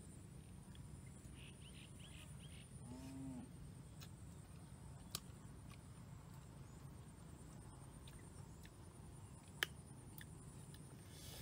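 Faint outdoor ambience: a steady high-pitched drone, a few faint chirps in the first few seconds, and two sharp clicks, the louder one about nine and a half seconds in.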